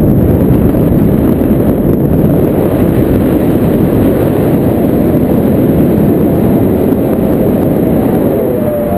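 Loud, steady wind rushing and buffeting over the camera microphone of a paraglider in flight, a low rumble with no rhythm.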